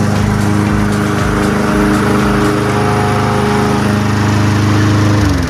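Gasoline walk-behind lawn mower engine running steadily. Near the end its pitch starts to drop as it is shut off and winds down.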